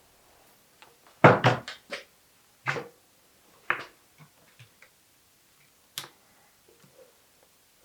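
Hard knocks and clicks of tools and bicycle parts being handled: a quick cluster of four or five about a second in, then single knocks roughly a second apart, with faint small ticks between.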